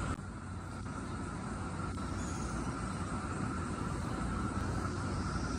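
Steady outdoor background rumble with a light hiss and no distinct events. The sound shifts abruptly just after the start.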